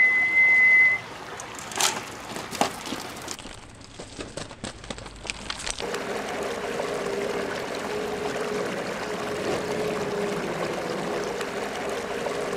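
Water trickling steadily in a small backyard pond, starting about six seconds in. It is preceded by a brief high steady tone and a few scattered clicks and knocks.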